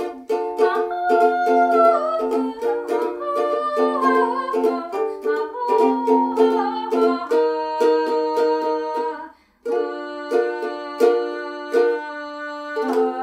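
Yellow ukulele strummed in steady rhythmic chords, with a woman's voice singing along over the first seven seconds. The strumming stops for a moment about two-thirds of the way through, then picks up again.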